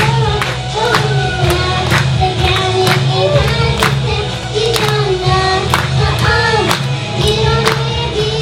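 Background song: a sung vocal melody over a steady beat of about two strikes a second.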